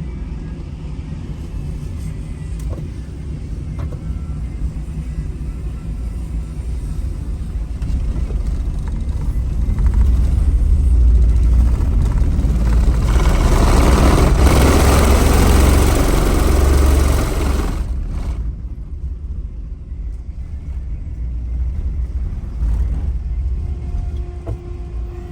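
Motor vehicle running with a steady low rumble. About halfway through, a louder rushing noise swells up and then cuts off abruptly.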